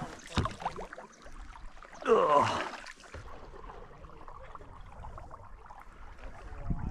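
Kayak on calm water with faint sloshing from paddling, broken about two seconds in by one loud, short voice-like cry that falls in pitch.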